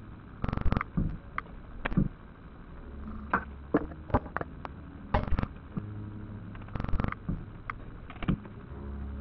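Moths fluttering against the glass globe of a caged lamp: irregular sharp taps, some in quick fluttering clusters of several hits. A low steady hum comes and goes from about three seconds in.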